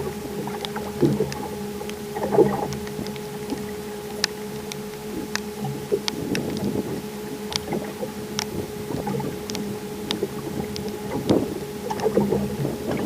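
Steady electric hum aboard a fishing boat, with scattered clicks, knocks and small splashes of water.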